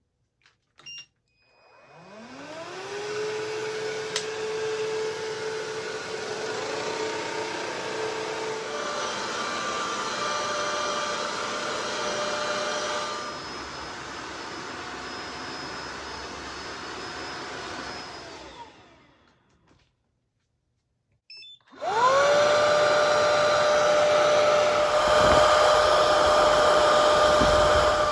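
Cordless wet-dry hard-floor cleaners running one after another. The first starts after a short beep, spins up with a rising whine, runs steadily while its pitch shifts up a couple of times, then winds down. After a brief pause and another beep, a second, louder machine spins up to a steady high whine.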